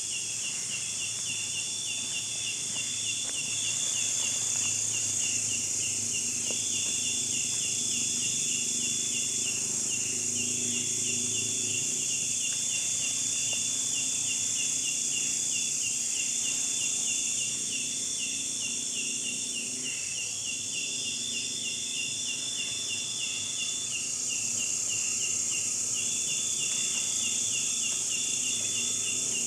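Chorus of insects in tropical forest: a steady high-pitched buzz with a rhythmic, pulsing trill over it that comes in repeated phrases every few seconds.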